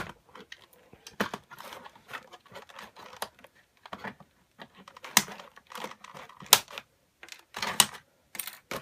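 Small hand cutters clicking and snipping at stiff plastic zip ties on a model's packaging, with plastic handling noise in between; irregular sharp clicks, the loudest about five, six and a half and eight seconds in.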